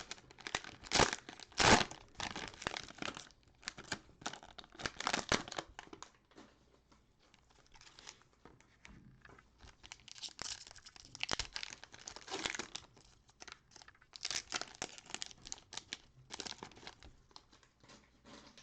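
Cellophane wrapper of a basketball card cello pack crinkling and tearing as it is opened. It comes in irregular spells, loudest in the first two seconds, with quieter handling between.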